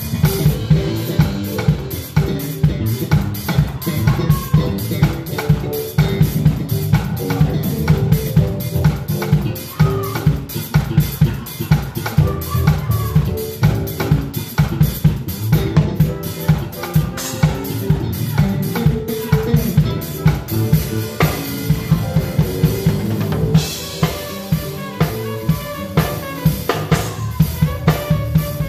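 Live band music led by a drum kit played close by: a steady groove of kick drum, snare and rimshot hits with cymbals, over bass and melodic instruments.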